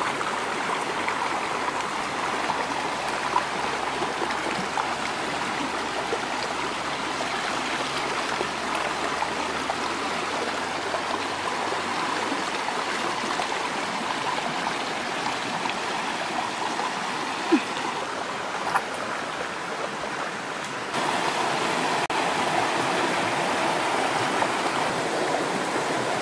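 Shallow stream rushing and splashing over rocks: a steady rush of running water that gets a little louder about four-fifths of the way through.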